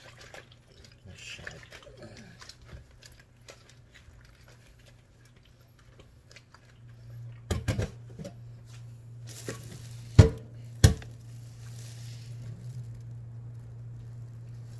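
Sliced fish being mixed with salt by hand in a plastic colander at a steel sink: soft wet handling clicks and rustles, then a few sharp knocks of the colander and hands against the sink, the loudest two about ten and eleven seconds in. A low steady hum runs underneath.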